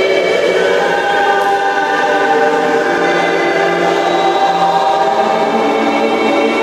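Choir-like music: many voices holding long notes together, the chord shifting slowly, with no beat.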